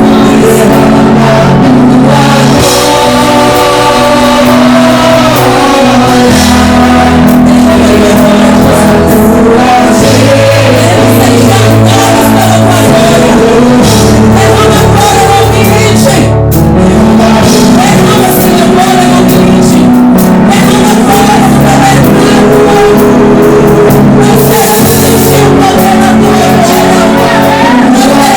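Live church praise music: a sung melody over sustained chords, with a bass line that moves to a new note every couple of seconds, played very loud.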